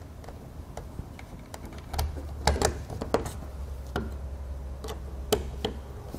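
Phillips screwdriver driving screws through a porch light's base into thin aluminium trailer siding: light clicks and ticks at irregular intervals over a low steady hum.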